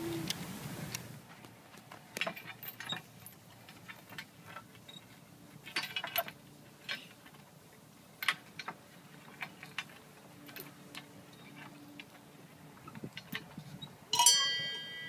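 Scattered faint clicks and knocks of hands and feet gripping and shifting on a metal pole while a boy climbs it, with a louder knock near the end that rings briefly.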